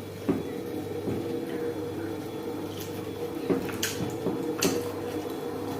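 Close-miked eating: wet chewing, smacking and squishing of goat meat and dhindo, with a few short clicks, over a steady low hum.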